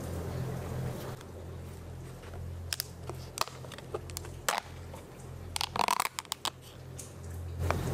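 Thin plastic food-tub lid being pried off by hand: a run of sharp plastic clicks and crackles as the snap rim gives way, coming quickest a little after the middle, with a last click near the end.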